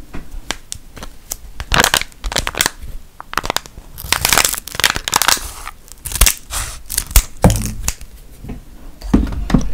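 A Galaxy instant hot chocolate sachet being crinkled and torn open close to a microphone: crackling handling noise, with a ripping tear about four to five seconds in.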